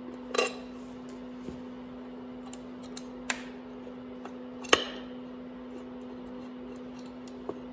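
Light metallic clicks and taps of a screwdriver working the Phillips-head screws of a dirt bike's stator cover, with sharper clicks about half a second, three seconds and nearly five seconds in. Under it runs a steady low hum.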